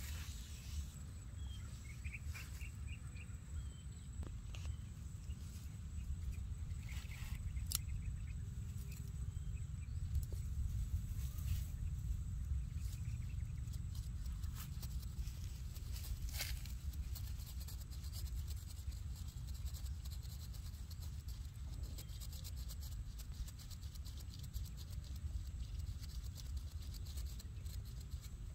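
Quiet outdoor ambience: a steady low rumble with scattered light clicks and rustles, and a few faint high chirps about two seconds in.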